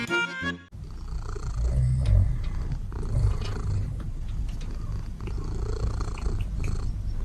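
Domestic cat purring, a steady low rumble.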